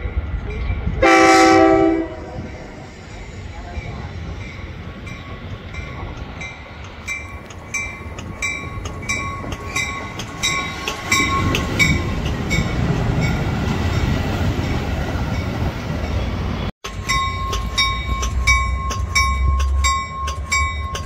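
Metra commuter train sounding one short horn blast about a second in, then rumbling in along the platform. From about a third of the way in, a bell dings steadily about twice a second.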